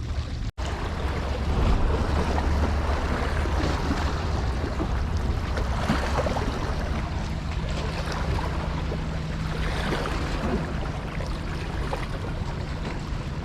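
Wind buffeting the microphone over waves washing at the water's edge, a steady rush with heavy low rumble. A faint low hum joins about halfway through. The sound cuts out for an instant just after the start.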